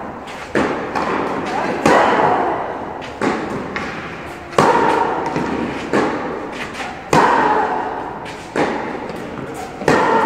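Tennis rally: a racket strikes the ball about every second and a half, the near player's shots louder than the far ones, each echoing in a large indoor hall. The near player gives a short vocal grunt as she hits.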